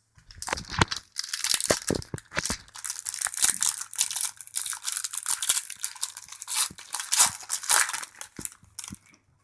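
Plastic wrapper of a hockey card pack being torn open and crinkled in the hands, with the cards handled: a dense, crackly rustle full of small clicks.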